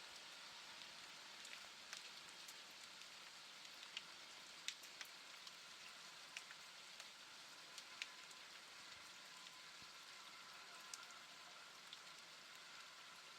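Faint steady rain falling, with scattered individual drops landing as sharp ticks.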